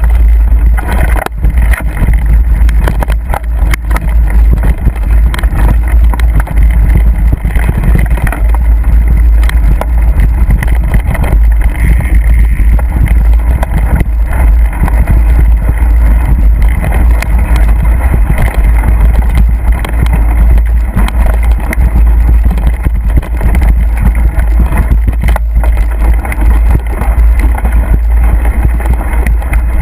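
Mountain bike ridden along a wet, grassy trail: a constant heavy rumble of wind buffeting the moving camera's microphone, with scattered knocks and rattles from the bike jolting over bumps.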